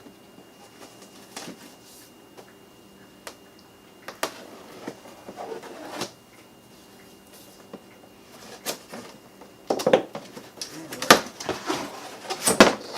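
A cardboard appliance box being opened and handled: scattered clicks and short scrapes, then louder rustling and knocks over the last three seconds.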